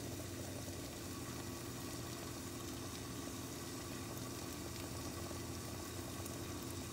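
Covered pot of snake gourd and potato cooking over a gas burner: a soft, steady simmering hiss under a glass lid, with a low steady hum beneath it.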